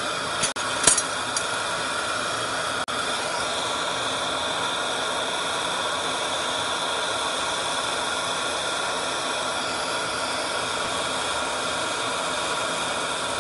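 Oxygen-and-gas lampworking torch burning with a steady hiss. A brief click about a second in.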